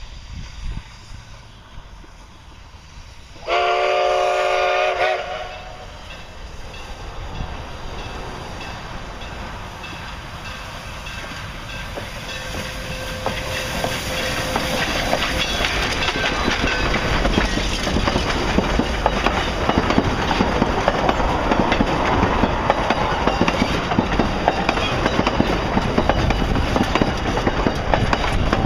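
Narrow-gauge steam locomotive No. 480 sounds one whistle blast, a chord of several tones, about three and a half seconds in. Its running noise then builds as the engine passes close by, followed by the passenger coaches clattering over the rail joints.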